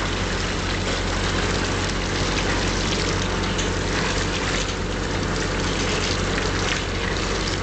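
Water from a hose splashing into the steel filter tank of a mortar pump mixer as it is rinsed out, over a steady engine hum.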